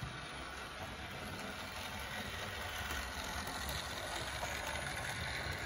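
A 00 gauge model train with a diesel locomotive running around the layout's curved track: a steady, even running noise from its wheels on the rails and its motor.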